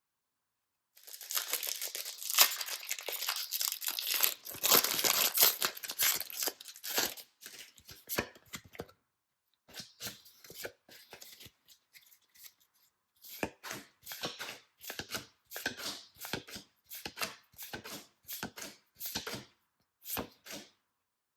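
Packaging being torn open by hand: a long stretch of dense tearing and crackling, then scattered short crinkles and clicks as the wrapping is handled.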